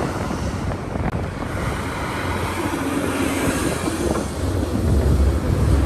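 A large excavator's diesel engine running as a steady low rumble, with wind buffeting the microphone; it grows a little louder about five seconds in.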